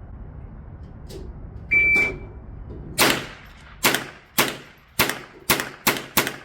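Shot-timer start beep, one short steady tone about two seconds in, then a .22 LR firearm firing a rapid string: seven sharp shots in about three seconds, starting about a second after the beep.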